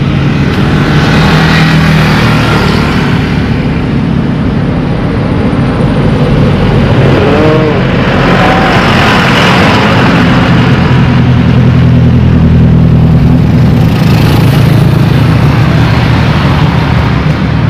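Road traffic on a main road: a steady low engine drone with vehicles swelling past every few seconds.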